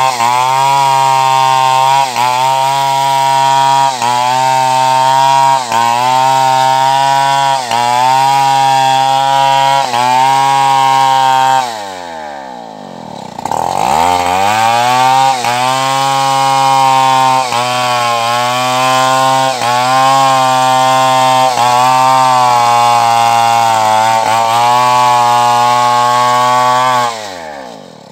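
Stihl two-stroke chainsaw running at high revs as it cuts through logs, its pitch dipping briefly about every two seconds. About twelve seconds in the throttle is let off and the engine drops to a low idle, then revs back up into the cut; near the end it falls back to idle.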